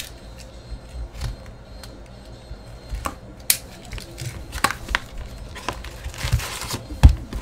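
Cardboard hobby box of Upper Deck SPx hockey cards being handled and torn open: scattered taps, scrapes and rustles, a sharp click about three and a half seconds in, denser rustling as the lid is pulled open, and a thump near the end.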